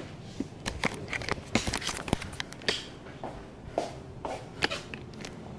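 Irregular light knocks, taps and clatter of kitchen things being handled on a countertop, among them a disposable aluminium foil cake pan, with a busier run of clatter about a second in.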